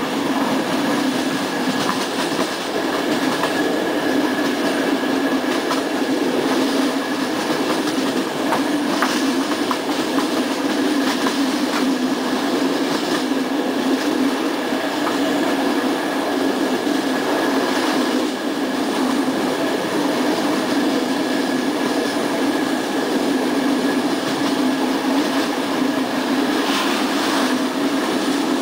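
Passenger train coach running at speed, heard from inside the carriage: a steady rumble of steel wheels on the rails with a faint steady high whine and a few scattered clicks from rail joints.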